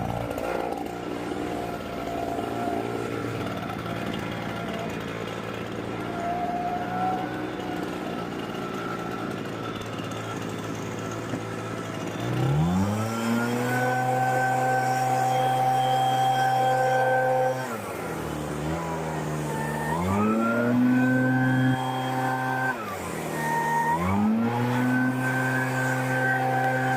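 A motor-driven cleaning machine used on the lawnmower starts up three times. Each time it rises quickly to a steady pitch, runs for a few seconds and winds down. Before the first start there is only quieter mixed noise.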